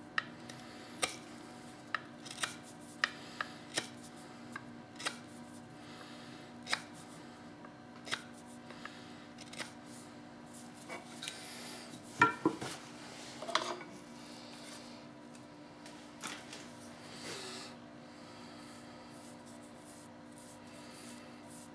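Small hand carving chisel paring end grain off an elm egg held in the hand: short, sharp scraping cuts about once a second, with a louder cluster of cuts about twelve seconds in. A faint steady hum runs underneath.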